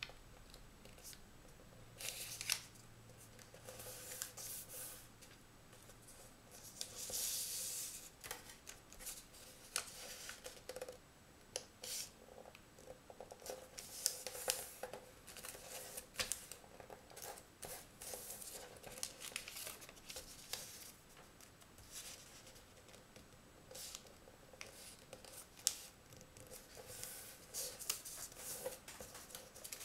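Origami paper being folded by hand on a table: irregular rustling and sliding of the sheet, with short sharp creasing strokes, and a longer rustle about seven seconds in.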